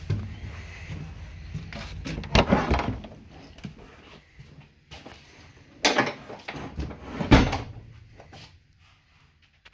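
Caboose end door being opened and pulled shut: several loud clunks and knocks of the door and its latch, the loudest about two and a half, six and seven and a half seconds in.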